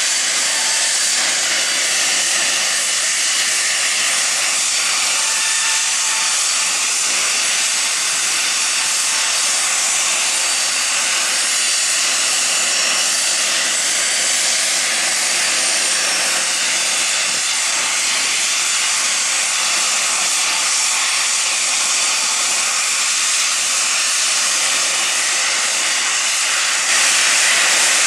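Steady, loud jet turbine hiss with a faint whine under it, holding an even pitch; it gets slightly louder about a second before the end.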